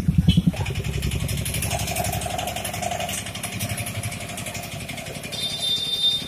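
Motorcycle engine running close by, its exhaust beating rapidly in the first half-second as it passes. It gives way to a steadier mix of engine sound from motorcycles and an auto-rickshaw moving through flood water, with a thin high tone near the end.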